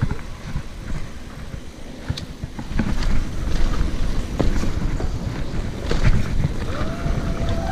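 Mountain bike riding down a dirt trail: a rumble of tyres and wind on the rider's camera microphone, getting louder about three seconds in, with scattered sharp clicks and rattles from the bike over rough ground.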